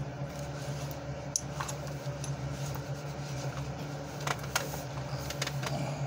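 Small metal pocket items clicking and clinking lightly as they are handled and put away, with a few sharp clicks over a steady low hum.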